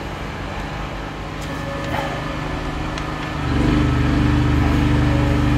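A motor or engine running steadily with a low, even mechanical hum, growing louder from about three and a half seconds in.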